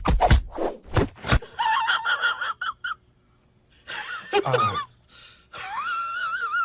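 Cat meowing in drawn-out, wavering calls: a short one about two seconds in, a falling one near the middle, and a long wavering one through the second half. Before them, a run of quick scratchy noises at the start.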